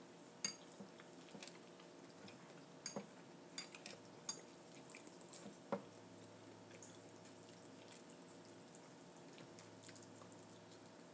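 Quiet eating sounds: a handful of soft wet clicks and small taps, scattered through the first half, then only a faint steady room hum.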